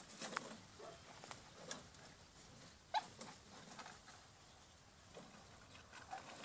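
Faint rustling and light snapping of dry cane stalks and twigs in a brush pile, as a podenco puppy moves about inside it, with a sharper crack about three seconds in.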